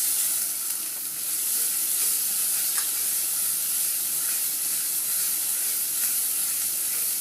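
Onion paste frying in hot oil in a deep pan, a steady sizzle, with ginger-garlic paste and turmeric just stirred in.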